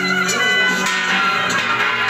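Traditional Vietnamese funeral ceremony music from a live ensemble: held melodic notes, with a percussion strike now and then.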